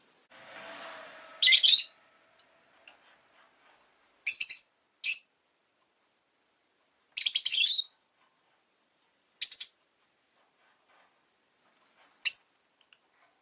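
Rosy-faced lovebird giving loud, shrill chirps: six short calls a few seconds apart, the one about seven seconds in a rapid string of notes.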